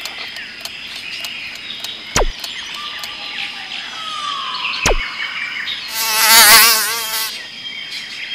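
Edited-in sound-effect track: a steady high buzzing and chirping bed, with three quick falling swoops about two and a half seconds apart and a louder wavering buzz near the end.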